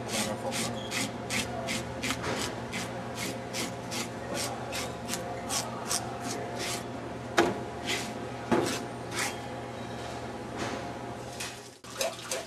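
Handheld plastic fish scaler scraped in quick, even strokes along a salmon's skin, rasping off the scales about two or three strokes a second. In the second half the strokes thin out to a few separate scrapes. A steady hum runs underneath.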